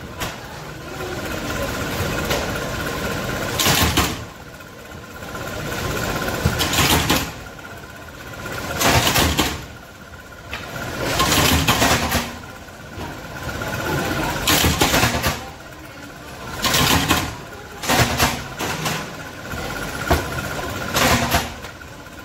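Factory machinery running with a steady hum and a thin steady whine, broken by a loud burst every two to three seconds in an uneven rhythm.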